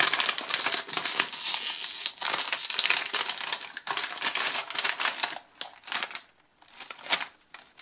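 A foil-lined plastic crisp packet crinkling and rustling as it is pulled open by hand, loud for about five seconds. It then goes quieter, with one brief rustle near the end.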